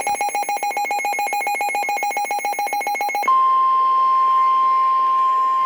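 Emergency alert tones on NOAA Weather Radio. Rapid electronic beeping runs at about nine beeps a second for about three seconds, then switches to one steady, loud, high warning alarm tone, which marks a tornado warning being broadcast.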